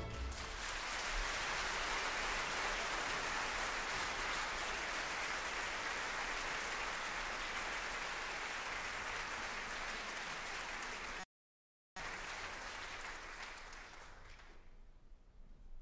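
Theatre audience applauding steadily. The sound cuts out for under a second about eleven seconds in, then dies away near the end.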